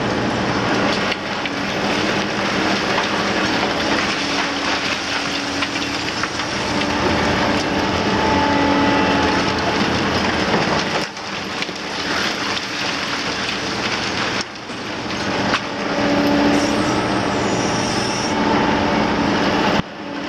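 Liebherr R 950 Demolition excavator working a building down: its 272 hp diesel engine and hydraulics running under load, with continuous clatter and crunching of broken concrete from the demolition tool on its long-reach arm. The sound breaks off abruptly a few times.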